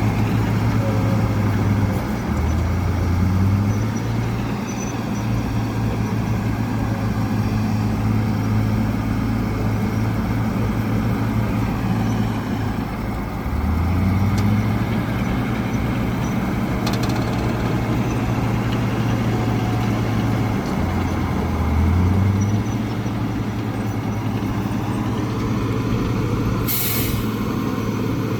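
Heavy diesel earthmoving machinery running steadily, its engine note dipping and climbing back three times as the load changes. A short hiss of air-brake release near the end.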